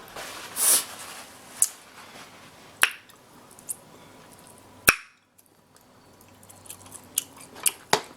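Sharp cracks and snaps of king crab shell being worked at by hand, with wet squishing and chewing sounds in between. The shell is too hard to break open with bare hands. The loudest crack comes just before five seconds in.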